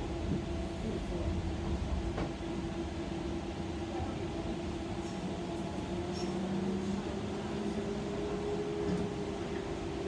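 Docklands Light Railway train running along elevated track, heard from inside the car: a steady rumble with an even hum running through it.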